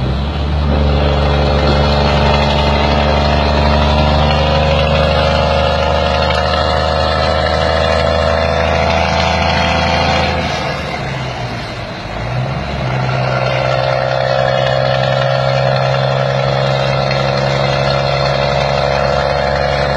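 Scania truck's diesel engine running with a loud, steady rumble. It eases off about ten seconds in and builds back up a couple of seconds later.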